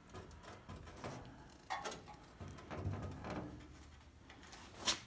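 Faint scattered knocks and rattles, with one sharp click near the end, from the partly freed inner rocker panel's sheet metal being moved by hand now that most of its spot welds are drilled out.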